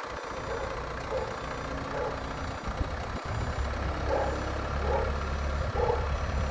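Forklift engine running, a low rumble that grows louder about halfway through, with a few short higher-pitched sounds about a second apart near the end.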